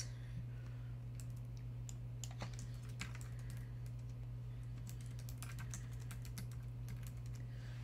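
Computer keyboard typing: scattered soft key clicks over a steady low electrical hum.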